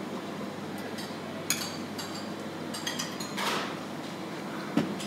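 Forks clinking and scraping on plates as several people eat at a table, with a few sharp clinks: one about a second and a half in, one near three seconds, and a louder one near the end.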